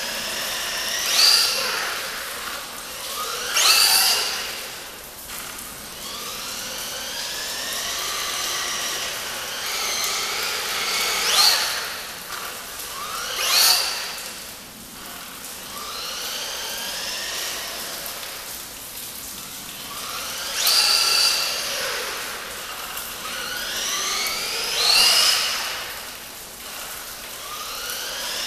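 2S brushless motor of an RC truck revving up again and again in place, its whine rising in pitch on each burst of throttle, with several louder peaks every few seconds.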